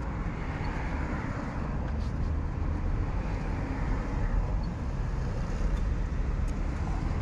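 Steady low background rumble, with a few faint light clicks as hands fit the rubber air-intake hose back onto the throttle body.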